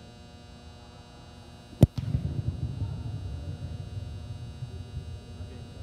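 A football being place-kicked off a holder's hold: the kicker's foot strikes the ball once with a sharp thump a little under two seconds in. A steady low hum runs underneath.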